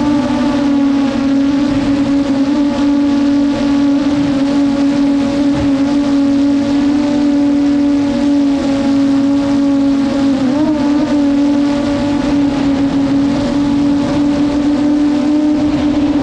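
DJI Mavic drone's propellers and motors whining at a steady pitch, with a brief wobble in pitch about ten seconds in.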